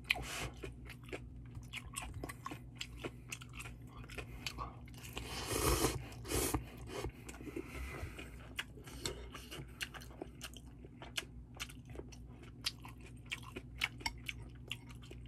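Close-miked eating of instant ramen noodles: wet chewing with many small mouth clicks and smacks, and a longer, louder noisy slurp about five to six seconds in. A faint steady low hum sits underneath.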